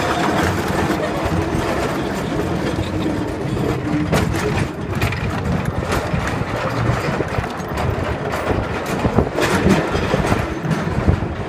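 Roller coaster cars running along their rails: a steady rumble and rattle with a few sharp knocks.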